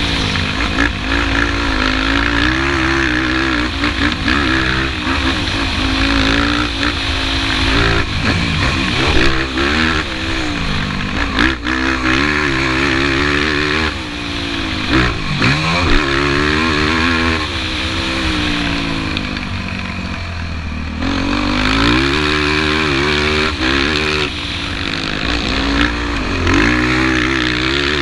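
Yamaha YFZ450 sport quad's single-cylinder four-stroke engine revving up and backing off again and again as it races over a dirt track, its pitch climbing through the gears and falling away, with one deep drop and climb about halfway through. A few sharp knocks come around a third of the way in, and wind rushes over the microphone.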